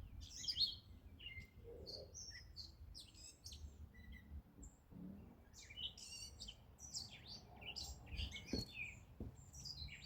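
Small songbirds chirping and twittering, with many short high calls one after another, over a faint low rumble and a couple of light knocks near the end.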